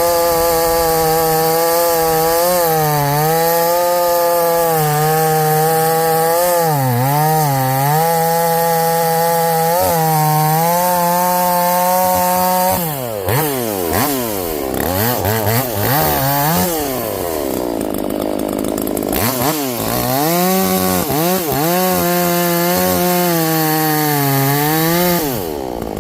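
Harbor Freight Portland chainsaw, ported with a modified muffler, running at full throttle through a pine log. Its pitch dips briefly several times under load. About halfway through the revs fall and rise repeatedly for several seconds, then hold high again before dropping off near the end.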